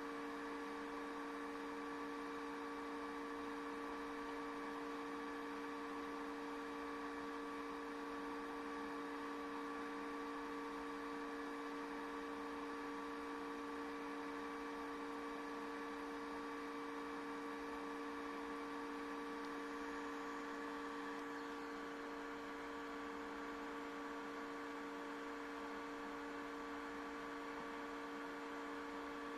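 Steady electrical hum made of several fixed tones over a faint hiss, unchanging throughout; the hiss softens slightly about two-thirds of the way through.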